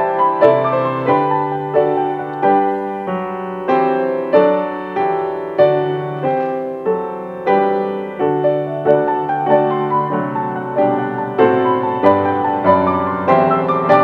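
Grand piano played four-hands by two players at one keyboard: a flowing piece of sustained chords and melody over a moving bass line, with new notes struck two or three times a second.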